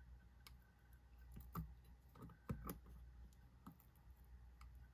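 Faint, scattered clicks and taps of small metal parts of a Reconnaissance Adzin flipper knife being handled and lined up during reassembly, the loudest about two and a half seconds in.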